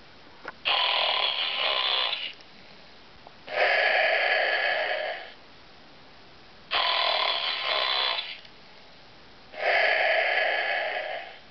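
Snoring Totoro plush toy playing its snore sound: four loud snoring breaths, each under two seconds, about three seconds apart. A breath that starts abruptly alternates with one that swells in more gradually.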